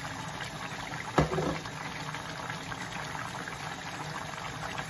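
A pot of soup simmering and bubbling with a wooden spoon stirring through it, a steady fine crackle. There is one short knock about a second in.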